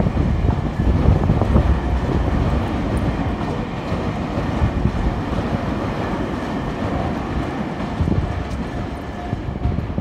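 Electric commuter train passing over a level crossing at close range, a steady rumble of wheels on rails that slowly fades as the train clears. The crossing bell rings faintly under it in the second half.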